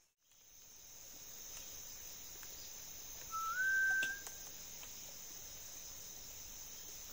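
Steady high-pitched drone of forest insects, with a single short whistled note that rises and then holds, about halfway through.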